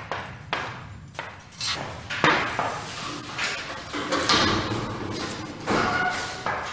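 Footsteps on a hard floor, then the clanks of a barred metal cell gate being handled.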